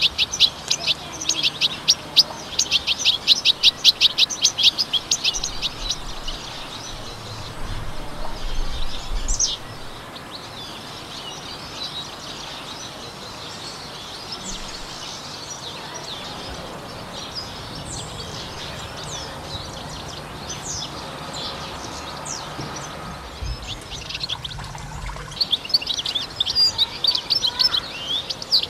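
European goldfinch twittering song. A fast run of bright, rapidly repeated notes opens it, thinning to scattered single chirps, and dense twittering returns near the end.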